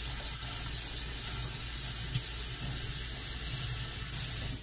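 Kitchen faucet running a steady stream of water into a stainless steel sink, shut off abruptly near the end.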